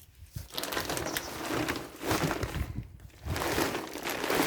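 Hands digging and rummaging through compost in a potato grow bag: rustling and crunching of soil in two spells with a short pause between.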